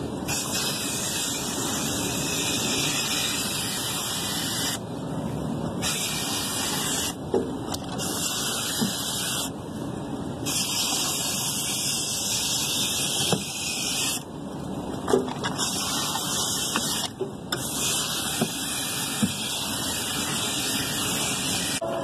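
Garden hose nozzle spraying water onto an evaporator coil's fins to rinse off foamed coil cleaner. The spray is squeezed on and off in about six bursts of one to four seconds, with short breaks between them.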